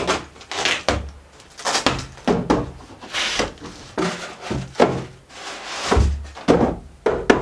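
A cardboard packing box being unpacked: the flaps are pulled open and polystyrene foam packing blocks are lifted out and set down. It gives a run of scrapes, rustles and knocks, several a second, with a sharp knock near the end.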